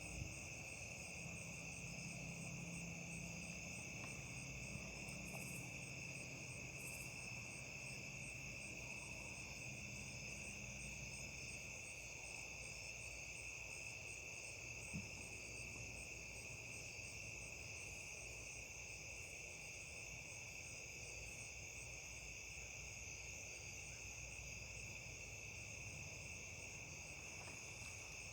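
Night chorus of crickets, a steady high-pitched trill that goes on without a break, with a fast even pulsing above it.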